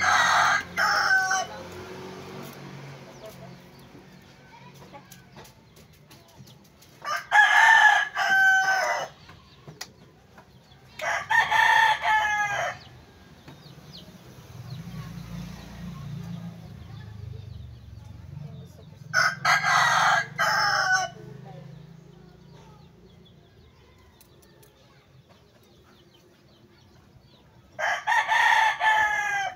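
Rooster crowing: five crows of about two seconds each, several seconds apart.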